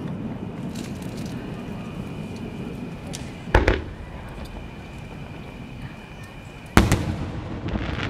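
Aerial firework shells bursting: two loud booms, about three and a half seconds in and again near the end, each trailing off in a short rumble, with a few faint crackles over steady background noise.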